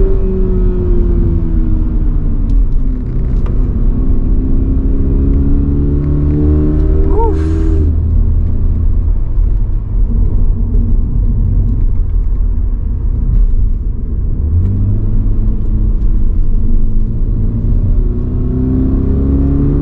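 Toyota GR86's 2.4-litre flat-four engine pulling under acceleration: the revs ease off, then climb steadily for several seconds before dropping suddenly at an automatic upshift about eight seconds in. They run lower for a while and climb again toward the end.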